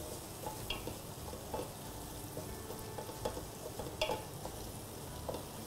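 Onions sizzling steadily as they fry in a pot, with a few scrapes of a wooden spoon stirring them against the pot.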